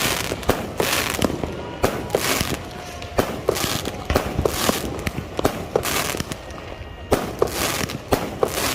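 Fireworks and firecrackers going off: many sharp bangs in quick, irregular succession, mixed with short hissing, crackling bursts.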